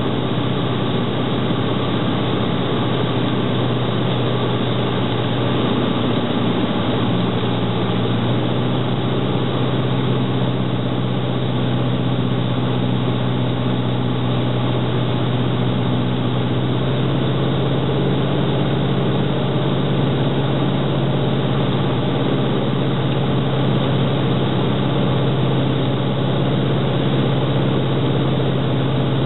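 Cessna 150's four-cylinder Continental O-200 engine and propeller running steadily, heard from inside the cockpit.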